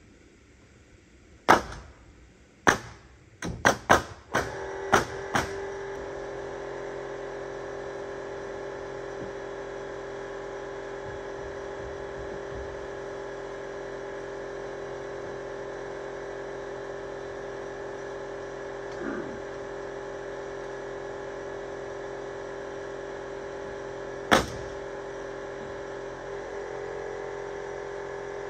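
About eight sharp knocks of nailing on wooden siding boards come in the first few seconds. A motor starts about four seconds in and runs with a steady hum, and one more sharp knock comes near the end.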